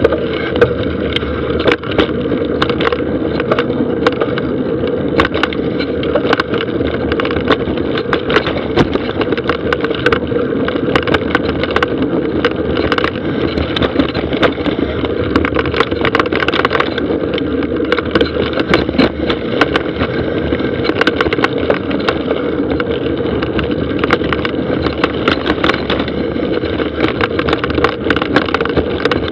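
Mountain bike riding down a dry dirt trail: a steady rumble of tyres on hard-packed dirt with a constant clatter of small knocks and rattles from the bike over rough ground.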